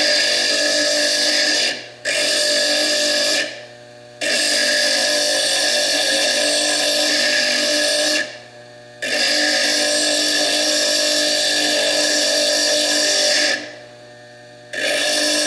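Foredom bench lathe grinding fire agate: a steady high whine mixed with grinding noise. It stops briefly four times and comes straight back each time.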